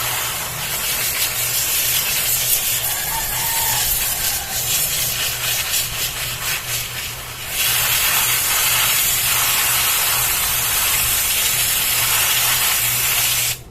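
Aerosol chain cleaner spraying onto a drive chain in a long, loud hiss. The hiss weakens and turns scratchy for a few seconds midway, then sprays strongly again before cutting off sharply near the end.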